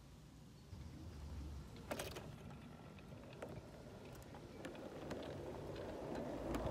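O gauge model train running past on its track: a low rolling rumble that grows louder as it nears, with scattered sharp clicks from the wheels and track.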